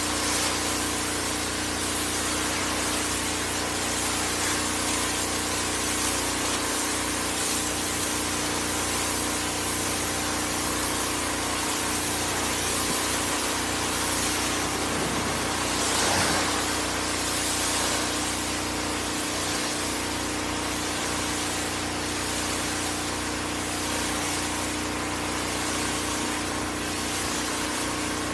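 Pressure washer running: a steady machine hum under the hiss of its water jet blasting the wooden deck of a flatbed trailer, the hiss swelling briefly a little past halfway.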